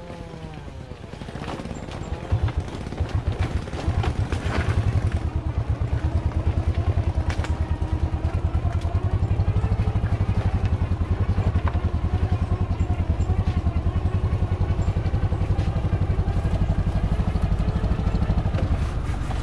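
Engine of a truck loaded with acacia logs working under load on a muddy uphill dirt track: a heavy low throb that grows louder over the first few seconds, then holds steady. A few sharp knocks or clatters come through early on.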